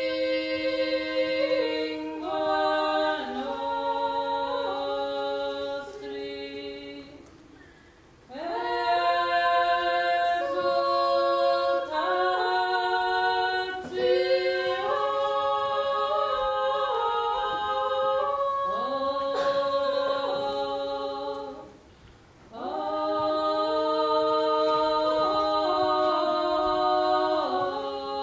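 Women's voices singing a cappella in harmony, in long held phrases that pause briefly twice.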